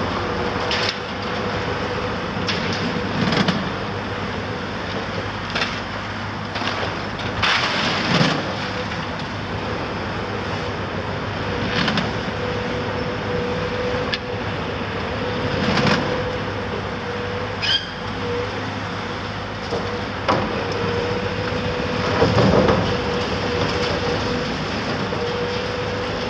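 Caterpillar 374F hydraulic excavator working at demolition: the machine runs steadily with a held hum, and every few seconds there is a short clatter or crunch of debris.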